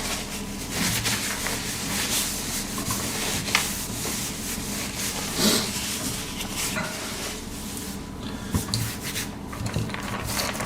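Hands handling a small zipper puller close to the microphone: irregular rubbing and rustling with a few small clicks.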